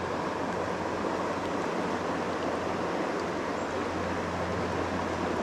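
Steady rush of a shallow river flowing over stones, an even hiss without breaks.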